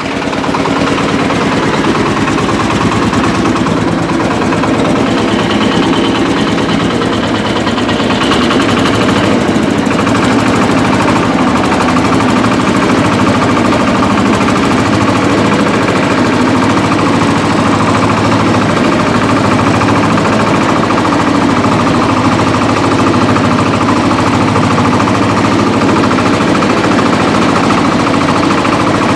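Shifeng 240 mini-tractor's diesel engine running hard with a steady clatter. It gets a little louder about eight seconds in.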